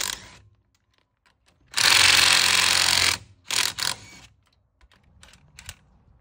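DeWalt cordless impact driver hammering lug nuts loose on a wheel. There is a short burst at the start, a longer burst of about a second and a half about two seconds in, and a few quick blips near four seconds.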